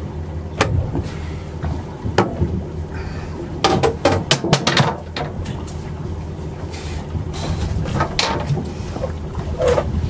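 Boat motor running steadily with a low hum, under scattered knocks and clatter of gear being handled on deck, a quick run of them about four seconds in.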